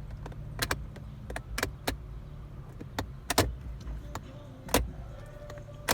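Steady low hum, as of a car, with about ten irregular sharp clicks and taps scattered over it.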